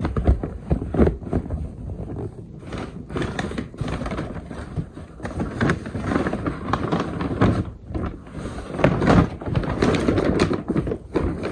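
A cardboard shoebox and its lid handled close to the microphone: repeated knocks and thumps with scraping and rustling.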